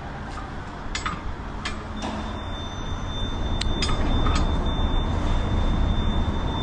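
A few sharp metallic clicks from a click-type torque wrench with a 32 mm socket being worked on stud bolts, over a steady low rumble. About two seconds in the rumble grows louder and a thin, steady high whine joins it.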